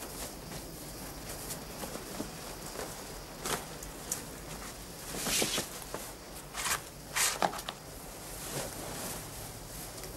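Clothing rustling and swishing as a person handles and takes off clothes, with a few soft footsteps, over a steady hiss. The loudest swishes come in a cluster about five to seven and a half seconds in.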